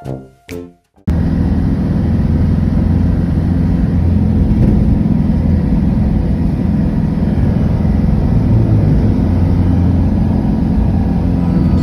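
Steady low rumble of a moving road vehicle, cutting in abruptly about a second in and running on evenly.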